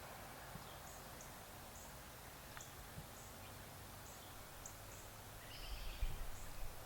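Faint outdoor ambience with scattered short, high chirps every half second to a second. About six seconds in there is a brief rustle with a low thump.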